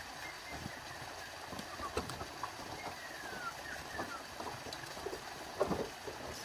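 Footsteps of a man and his dogs on a bamboo-slat footbridge: scattered, irregular light knocks over a faint steady hiss, a little stronger near the end, with a few short falling chirps in the middle.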